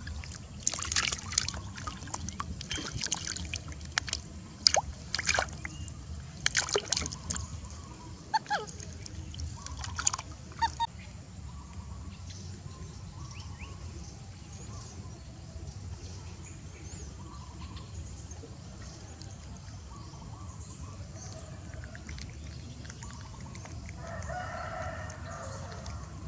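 Water splashing in a quick, uneven run of sharp splashes for about the first ten seconds as a baby macaque moves through shallow pond water. After that, only a steady low rumble remains, with a brief call-like sound near the end.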